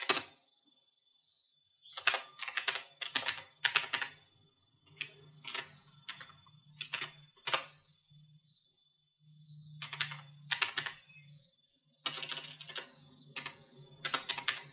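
Computer keyboard typing in short bursts of quick keystrokes, with pauses of a second or two between the bursts. A faint low hum runs underneath.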